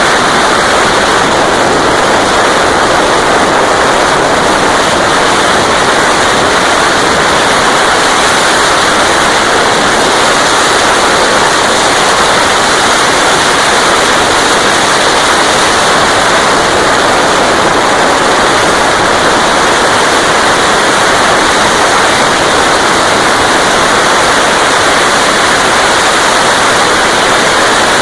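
Steady, loud rush of wind over the microphone of a Honda Dream C100 motorcycle riding at top speed, unbroken throughout; no separate engine or exhaust note stands out from it.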